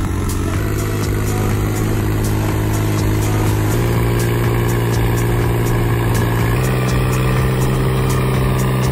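New Holland 3630 tractor's three-cylinder diesel engine running on a post-service test. Its engine speed steps up three times, the throttle raised in stages, and it responds to each.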